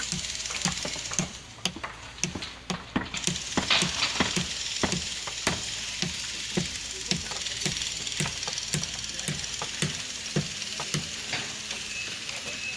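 Repeated knocks at a steady pace of about two a second, over a constant hiss.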